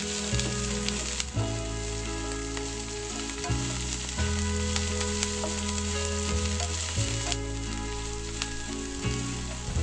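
Sliced onions and chilies sizzling in hot oil in a wok while a spatula stirs them, scraping and tapping against the pan now and then.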